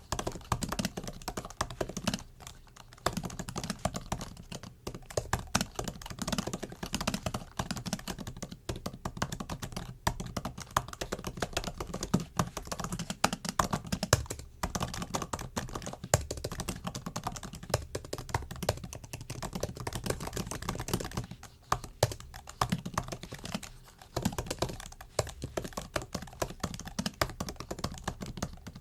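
MacBook laptop keyboard being typed on: a fast, continuous run of light key clicks with brief pauses between bursts.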